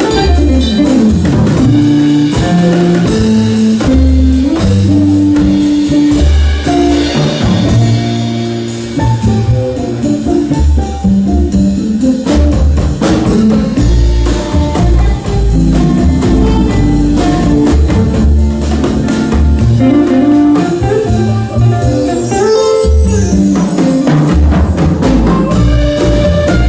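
Live Ethio-jazz band playing: hollow-body archtop electric guitar and upright double bass over a drum kit, with moving bass notes under the melody.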